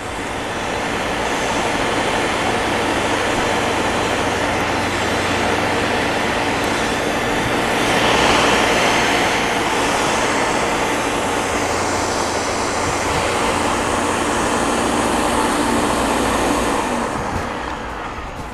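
Electric countertop blender running steadily for about seventeen seconds, then winding down near the end. It is blending coconut with water into coconut milk.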